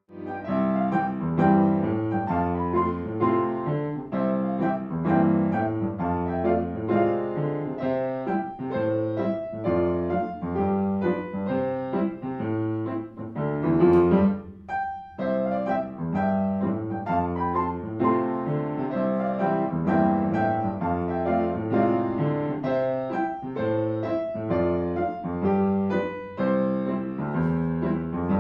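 Piano music: one piece plays on, ends about halfway with a quick rising run, and after a brief pause another piano piece begins.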